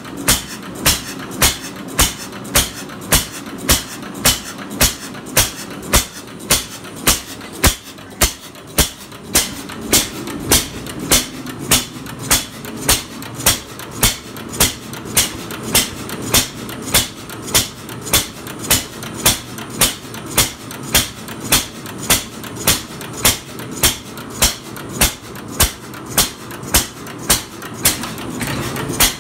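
1912 Baker Monitor 5 hp single-cylinder stationary gas engine running, firing in an even rhythm of sharp beats a little under two a second over the steady clatter of its moving parts, on its first run in many years.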